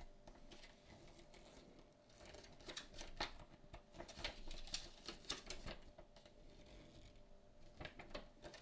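Faint rustling and light irregular taps of paper and foam packaging being handled and lifted out of a box, busiest from about two and a half to six seconds in.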